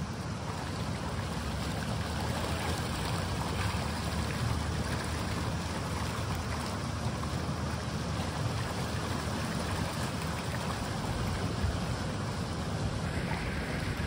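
Steady rush of running water, such as the flow through hatchery raceways, with wind buffeting the microphone.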